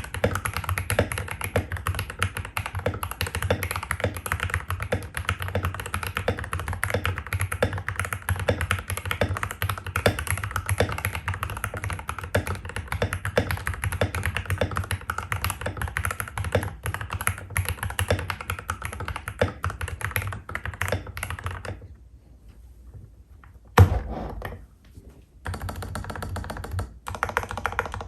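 Typing on a Royal Kludge RK68 mechanical keyboard fitted with stock Gateron Pro Yellow linear switches (50 g), an aluminium plate and PBT keycaps: a dense, fast run of key presses. About 22 seconds in there is a short pause, broken by one heavy thunk, then short bursts of typing.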